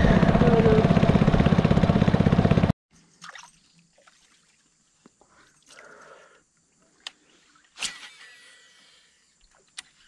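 A small boat's engine running loudly, cutting off abruptly between two and three seconds in. Then quiet water trickling and dripping, broken by a few sharp clicks, the loudest about eight seconds in.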